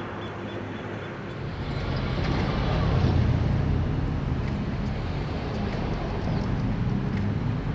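Siemens SC-44 Charger diesel-electric locomotive approaching with its Cummins QSK95 diesel engine running as a steady low drone. The drone builds up about a second and a half in, is loudest around three seconds in, then holds steady.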